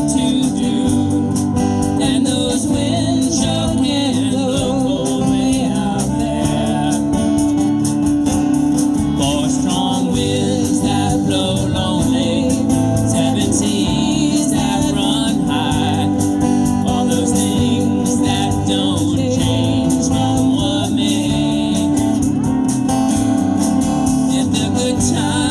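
Live band playing a folk song, with singing over the instruments throughout.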